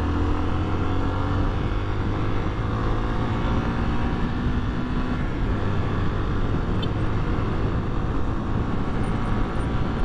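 Honda XRE300's single-cylinder engine pulling hard as the motorcycle accelerates from about 45 to 85 km/h. Its note is clear for the first few seconds, then sinks into a steady rush of wind noise about halfway through.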